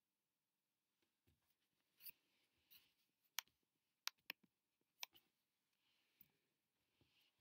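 Near silence: quiet room tone broken by a few faint, sharp clicks.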